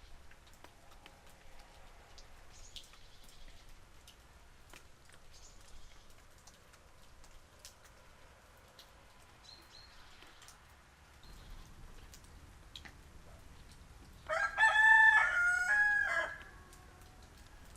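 Rooster crowing once near the end, a single crow of about two seconds in several rising and falling segments, over faint light rain dripping.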